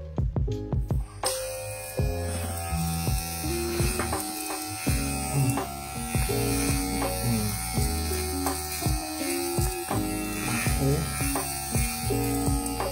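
Kemei KM-2002 cordless hair clipper switched on about a second in and buzzing steadily while cutting hair at the side of the head, with music playing underneath.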